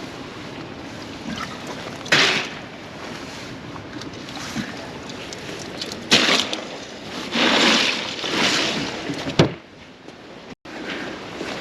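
Water sloshing against a small fishing boat's hull with wind noise on the microphone, with several louder rushes of noise, the longest about two-thirds of the way through.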